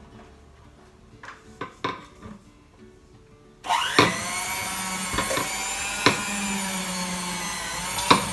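A few light knocks, then about three and a half seconds in an electric hand mixer switches on and runs steadily with a high whine, its beaters creaming softened butter in a stainless steel bowl. A few sharp clicks sound while it runs.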